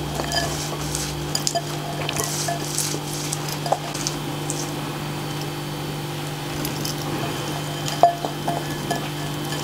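Light clinks of a glass bowl against a glass mixing bowl, and the soft patter and rustle of chopped shallots, green chillies and curry leaves dropping onto flour as hands work the pakoda mixture. A steady low hum runs underneath.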